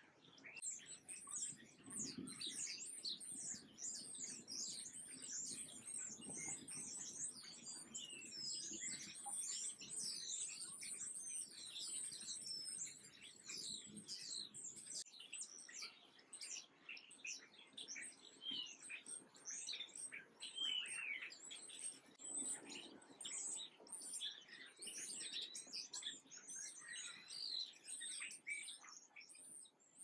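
Small songbirds chirping and twittering, many quick, high, downward-sweeping chirps overlapping without a break.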